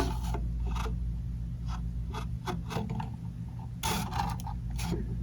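Light handling noise of scattered scrapes and clicks, with a louder rubbing scrape about four seconds in, over a steady low electrical hum.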